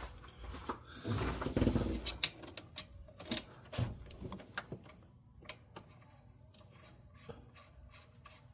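Hand tools working bolts on a metal throttle-body injector pod: a scraping rustle, then a run of irregular metallic clicks and knocks that thin out after a few seconds.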